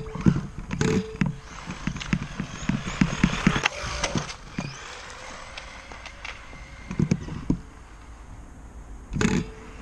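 1:8-scale RC buggy driving over rough ground, heard from a camera mounted on it: a rapid run of knocks and thuds from the chassis hitting bumps, with a hiss over the middle couple of seconds and a few more knocks near the end.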